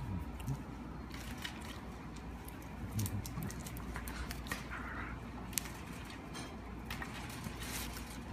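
Rustling and scattered light clicks as a hand rubs a shiba inu's fur and the dog squirms about, over a steady low hum.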